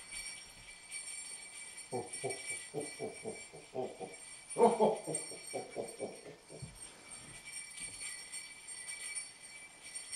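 Sleigh bells jingling steadily throughout. From about two seconds in to about seven seconds, a voice makes a quick run of short pulsing sounds, about four a second, loudest a little before the middle.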